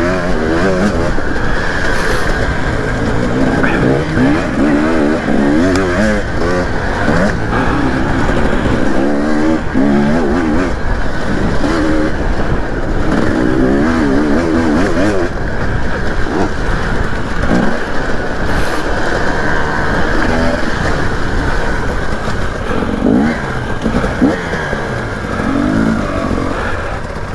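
Dirt bike engine, heard from on the bike itself, revving up and falling back again and again as it rides a motocross track, over steady wind noise. It eases off near the end as the bike slows.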